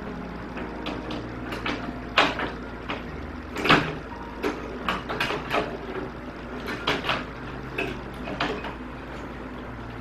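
Irregular clicks and knocks of a microwave oven's replacement mechanical timer switch, with its sheet-metal mounting, being handled and fitted into the oven's control panel, the loudest knocks about two seconds and nearly four seconds in.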